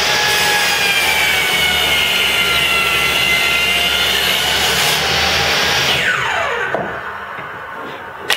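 Table saw ripping through hard maple, making the second cut of a rabbet along the edge of a vise jaw. About six seconds in, the saw is switched off and its pitch falls as the blade spins down. A sharp knock comes near the end.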